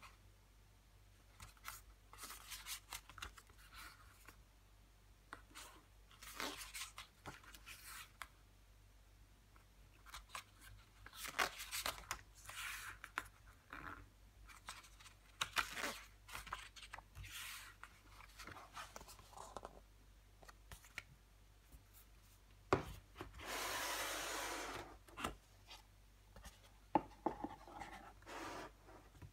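Pages of a glossy CD photo booklet being turned and handled, paper rustling and rubbing in short, irregular bursts with a few light taps. Near the end comes one longer sliding rub of about a second and a half.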